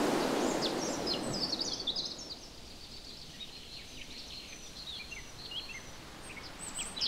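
Outdoor ambience of small birds singing, many short high chirps and trills, over a rushing noise that fades out about two seconds in.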